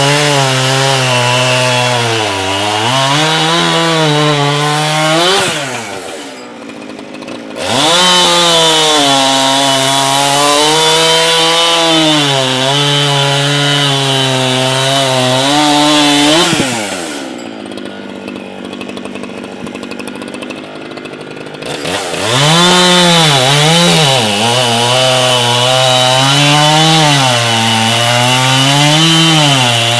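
Echo CS-7310P two-stroke chainsaw cutting wood at high revs, its pitch dipping and rising as the chain loads in the cut. Twice the throttle drops back, briefly about six seconds in and for a few seconds from about seventeen seconds in, before it revs back up.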